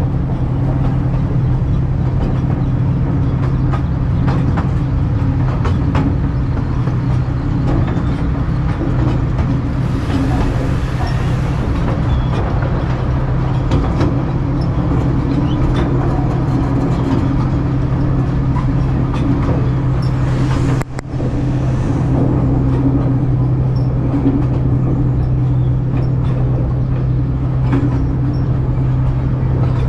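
Miniature park train running at a steady pace, its engine giving a steady low hum under the rumble of the cars, with scattered light clicks. The sound drops out briefly about two-thirds of the way through.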